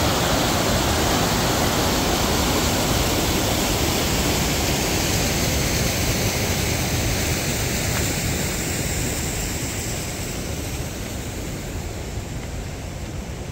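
Rushing water of a mountain stream or waterfall, a steady even rush that grows gradually fainter over the last few seconds.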